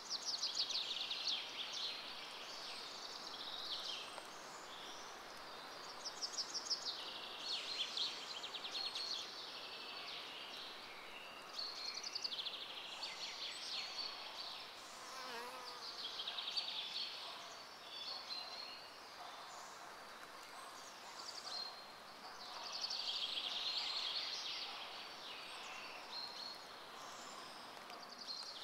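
Insects trilling high and buzzing, in spells of a second or three that come and go every few seconds over a faint steady hiss; a brief lower call about halfway through.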